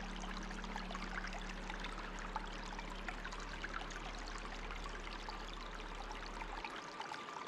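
Steadily trickling, flowing water with many small splashes and drips, over a low steady hum that stops near the end.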